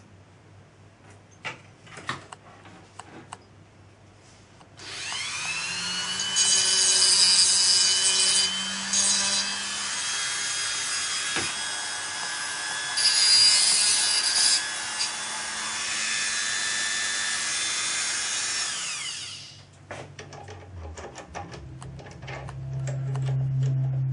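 Corded handheld rotary tool with a diamond cutting wheel spinning up with a rising whine, running at high speed, and grinding through a thin glass tube for a boiler water-gauge sight glass in two louder spells of cutting, then winding down. A few handling clicks come before it starts and after it stops.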